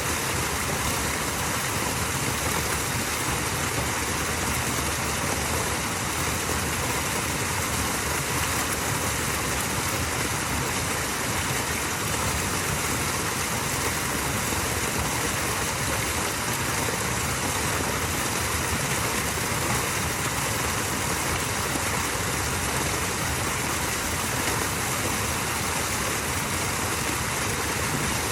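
Small waterfall: water falling and running in a steady, unbroken rush.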